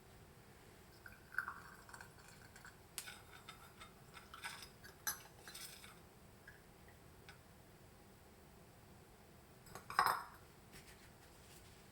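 Glass bottles and utensils clinking and knocking lightly as hot syrup is filled into the bottles. Scattered small clinks for the first half, then one louder clink with a short ring near the end.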